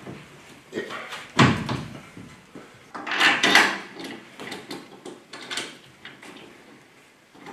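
Metal clunks and scraping as a steel lower suspension arm is manoeuvred into its subframe mounts and a bolt is pushed through its bush. A heavy knock comes about a second and a half in, and a longer scraping rattle around three seconds in, among lighter clicks.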